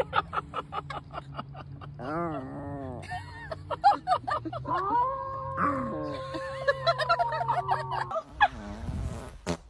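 Small white fluffy dog howling: a run of quick short yips, then wavering rising-and-falling calls, and about five seconds in one long held howl lasting some three seconds.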